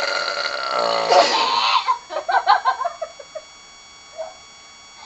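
A long, loud burp forced out on purpose, lasting about two seconds, its pitch dropping in the second half.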